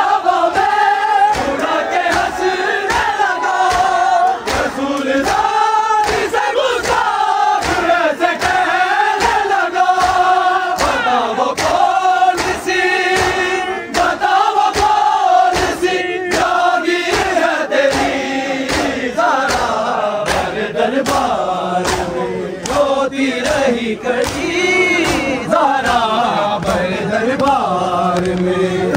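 A group of men chanting a Shia noha in a mournful sung melody, kept in time by a steady rhythm of sharp beats from matam, hands striking chests, about two a second.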